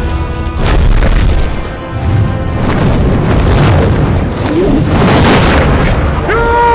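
Film sound effects of deep booms and rumbling under dramatic orchestral music, as a fire demon approaches. Near the end a man starts to shout.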